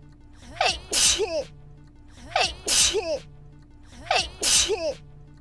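A single recorded sneeze looped, heard three times about every second and three quarters. Each has a brief high-pitched catch of breath, then the loud sneeze burst.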